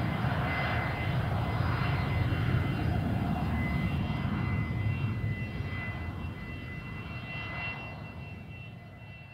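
Boeing C-17A Globemaster III's four Pratt & Whitney F117-PW-100 turbofan engines climbing away after takeoff: a deep rumble with a steady high whine on top. It fades steadily over the second half.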